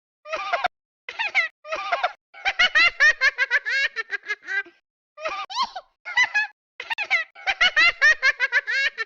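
High-pitched giggling laughter in quick bouts of rapid repeated notes, with short silent breaks between them.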